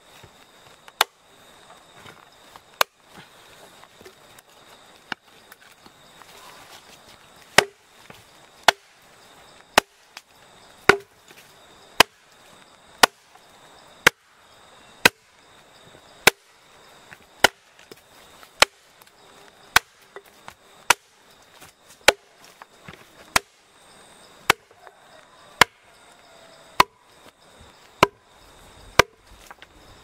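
Hatchet chopping into a timber block, knocking out the wood left between closely spaced chainsaw cuts. The sharp strikes are sparse at first, then come steadily about once a second from about a quarter of the way in.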